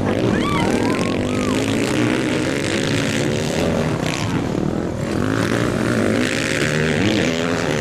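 Several motocross bikes racing past together, their engines revving up and down in overlapping, shifting tones. A few short high chirps sound about half a second to a second and a half in.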